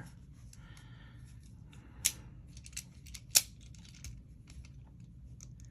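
Locking pliers being set on a turnbuckle shaft: light handling clicks, with two sharp clicks about two seconds and three and a half seconds in.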